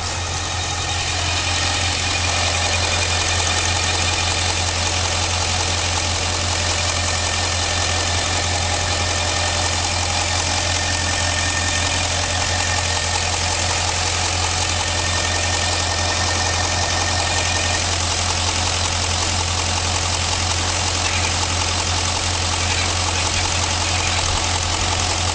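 Holden VZ Commodore SV8's 5.7-litre V8 running steadily at idle, carrying an odd noise that the owner cannot identify. Faint high steady tones sit over the engine sound, and one of them drops out about two-thirds of the way through.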